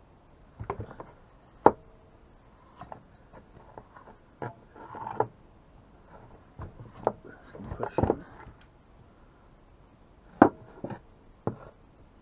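Irregular knocks, clicks and short rattles of a partly dismantled two-stroke chainsaw being handled and worked with hand tools on a wooden bench, with the sharpest knocks about two seconds in and again near ten seconds.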